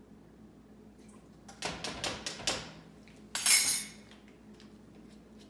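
Kitchen utensils and cookware clinking: a quick run of light knocks about a second and a half in, then a louder half-second scrape and rattle.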